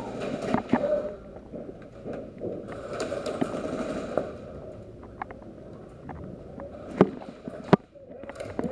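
Footsteps and gear rustle of an airsoft player moving through an indoor arena, with scattered small clicks and two sharp cracks about three quarters of a second apart near the end.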